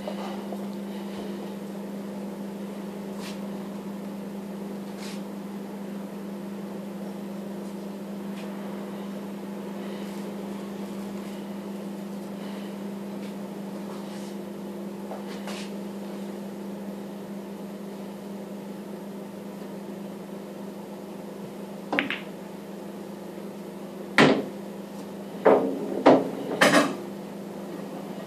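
Pool balls clacking during play: one sharp click, then a quick run of four loud knocks near the end. A steady low hum runs underneath, with faint scattered clicks earlier on.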